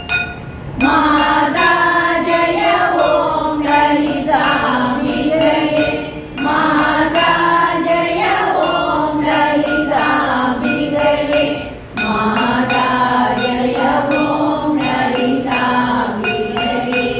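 A group of voices singing a devotional aarti song in phrases, with short breaks about six and twelve seconds in. Metallic ringing strokes, about three or four a second, keep time through the singing.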